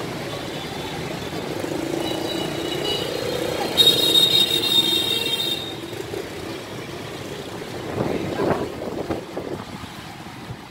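City street ambience with motor scooters and cars passing. It is louder and brighter for a couple of seconds about four seconds in, then quieter, with a few short knocks.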